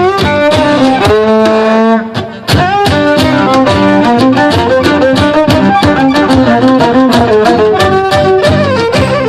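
Live gypsy-rock band playing an instrumental in an unusual Turkish rhythm, with a lead violin over drums. About two seconds in the band holds a few notes and drops out for a moment, then comes straight back in.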